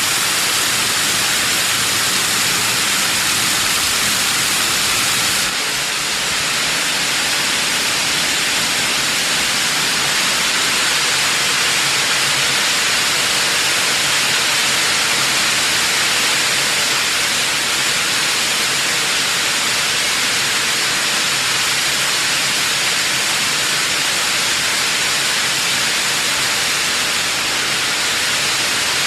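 Waterfall spray: a steady hiss of fine, misty water spray, strongest in the upper range with little low rumble. It shifts slightly in tone about five and a half seconds in.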